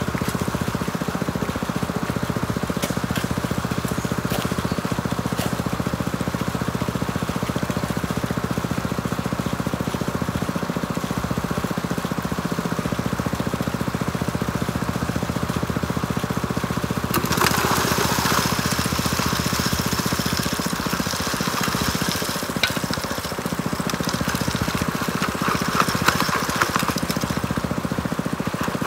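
Small gasoline water-pump engine feeding a high banker, running steadily at a constant speed. A louder rushing noise rises over it for about two seconds around seventeen seconds in, and again briefly near the end.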